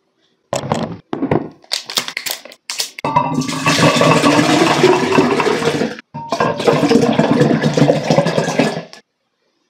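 A few short cracks and clicks from handling plastic 1.5-litre drink bottles. Then vitaminwater pours from two upturned bottles at once into a tall glass, stops briefly about six seconds in, and pours again until near the end.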